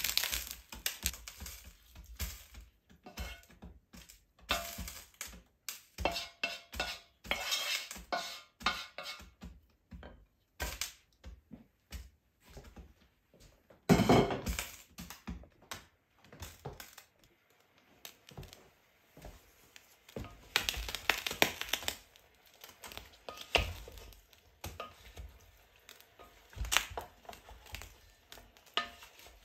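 Wooden spoon knocking and scraping against a frying pan and an enamelled cast-iron pot as browned beef chunks are dropped onto vegetables and stirred: scattered clinks and knocks, with a louder thump about midway.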